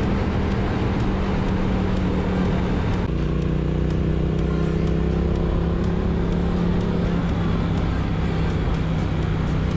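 Triumph Street Twin's 900 cc parallel-twin engine running steadily at cruising speed, with wind rush over the microphone; about three seconds in the engine note drops to a lower steady pitch.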